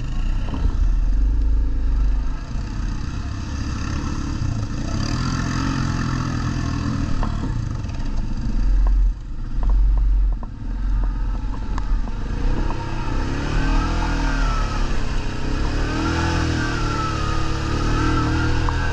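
ATV engines running, revved up and down several times in the second half, with a few light knocks around the middle.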